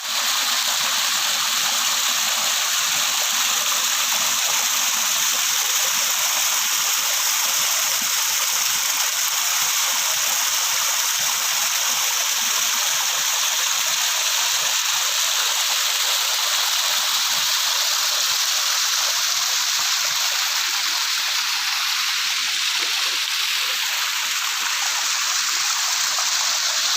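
Running water: a stream rushing steadily and evenly, a constant hiss-like flow.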